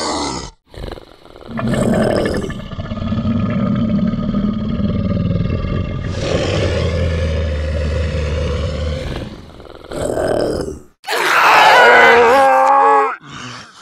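A string of zombie growls and groans: long, low rumbling ones first, then short snarls. The loudest is a high, wavering snarl near the end.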